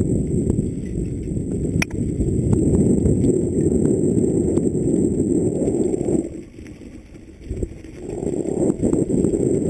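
Mountain bike descending a dirt and rock trail at speed: wind buffeting the helmet camera's microphone and tyres rumbling over the ground, with scattered knocks and rattles from the bike. The rush drops away for about a second and a half a little after six seconds in, then picks up again.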